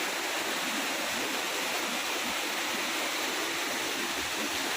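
Waterfall and stream water rushing, a steady even roar with no change.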